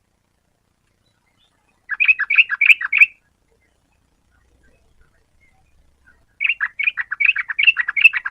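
Yellow-vented bulbul calling: two bouts of quick repeated chattering notes, the first about two seconds in and lasting about a second, the second starting about six seconds in and running on longer.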